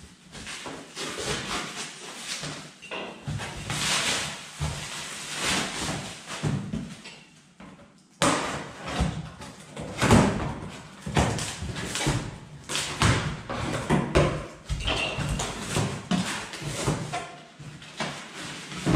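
A cardboard parcel being unwrapped and opened by hand: packaging rustling and tearing, with irregular knocks and scrapes of the box on the floor. It gets louder about eight seconds in.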